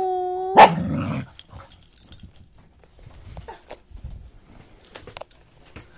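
Dogs playing: a high drawn-out whine, cut off about half a second in by one short, loud bark, then quieter scuffling and small whimpers.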